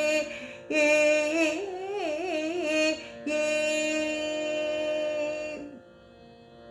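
Female Carnatic vocalist singing a slow line of the kriti in raga Shubhapantuvarali, with wavering, oscillating ornaments on the notes, then holding one steady note, over a steady drone. Near the end the voice fades, leaving only the quiet drone.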